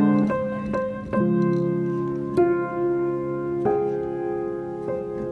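Background piano music: notes and chords struck at a slow, gentle pace and left to ring.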